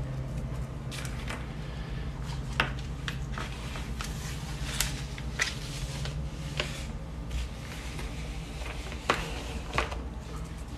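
Scattered taps and rustles of a sheet of paper being slid and repositioned on a tabletop and a paint marker being handled, over a steady low hum.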